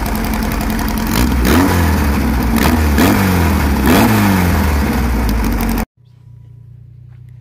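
Air-cooled VW flat-four engine of a Baja bug idling, then revved three times by hand, the pitch climbing and falling back with each blip. Near the end it cuts off abruptly to a much quieter, steady low hum.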